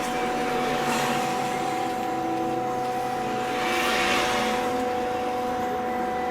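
Trolleybus running, heard from inside the cabin: the electric traction drive holds a steady whine over road and tyre noise. A rushing noise swells briefly about four seconds in.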